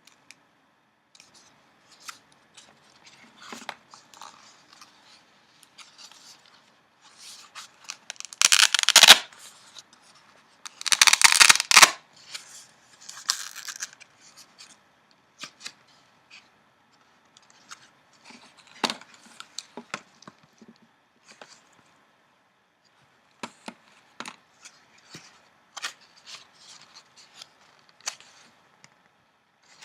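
Newspaper flier paper being handled and its pages flipped. Two louder rustling sweeps come about 9 and 11 seconds in, with light crinkles and ticks of paper scattered between.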